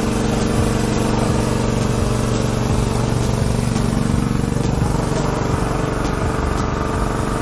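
A small engine running steadily at an unchanging pitch, a constant mechanical hum.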